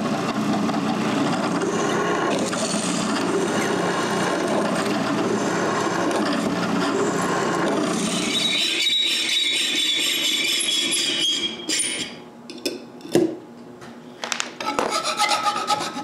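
Drill press boring through an aluminium plate, a steady grinding cut with a high squeal joining about eight seconds in. The cut stops after about twelve seconds, followed by a few knocks and a short scraping near the end.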